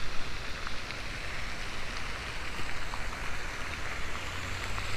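Pond fountain spraying water: a steady, rain-like splashing hiss that drowns out other sounds.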